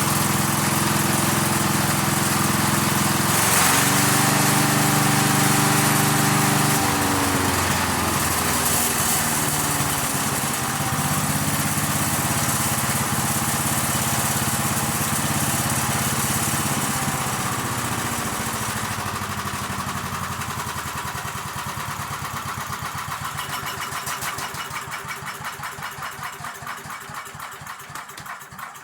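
Chipper shredder's small four-stroke engine running on fresh oil, its pitch shifting a couple of times in the first several seconds. Over the last several seconds it dies down, the firing slowing into separate pulses as it is shut off and coasts to a stop.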